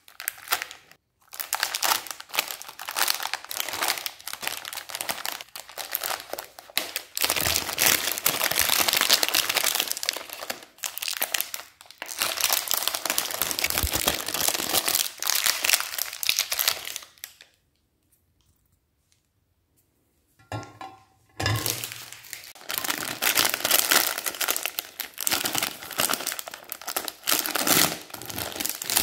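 Foil-lined plastic wrappers of Magnum ice cream bars crinkling and crumpling in the hands as they are handled and peeled open. The crinkling stops for a couple of seconds about two-thirds of the way through, then starts again.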